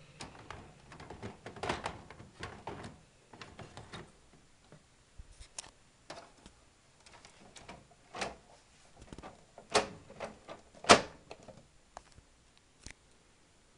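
Plastic clicks, scrapes and knocks of a toner cartridge being pushed into an Apple LaserWriter Select 360 laser printer while its cover is handled. The sounds are irregular, and the loudest is a sharp thunk about eleven seconds in.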